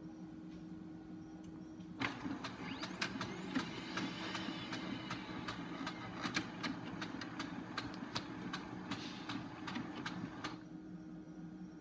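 Brother HL-2320 laser printer running its power-on start-up cycle: motors whirring with many sharp clicks, starting about two seconds in and stopping suddenly near the end. A steady low hum lies underneath.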